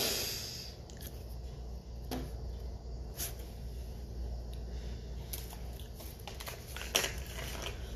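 Plastic coffee-creamer bottles handled, with scattered clicks, knocks and rustles over a steady low hum. The sharpest click comes about seven seconds in, as the bottle's plastic cap is worked open.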